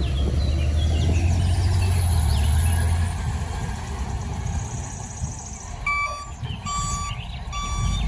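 Grove all-terrain mobile crane's engine running with a low rumble that eases after about three seconds; near the end its reversing alarm beeps three times, a little under a second apart.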